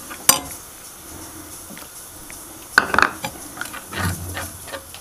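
Spatula stirring and scraping a thin, freshly watered-down curry gravy in a kadai, with knocks of the spatula against the pan; a sharp click just after the start and a cluster of scrapes and knocks about three seconds in are the loudest.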